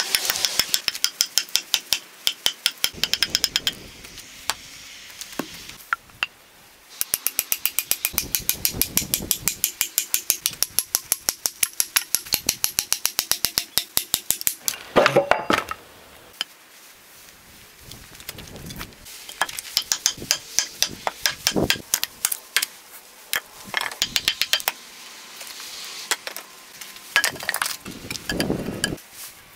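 Axe chopping into an upright ash board to hew out a handle blank: quick, even strokes about four a second, in runs broken by short pauses, with a duller knock around the middle and another near the end.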